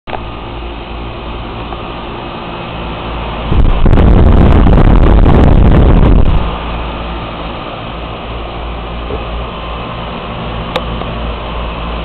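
Carrier air-conditioner condensing unit running, a steady hum with its three-blade condenser fan turning. From about three and a half to six seconds a much louder rush of air sweeps across the sound as the fan's upward blast hits the microphone held over the grille.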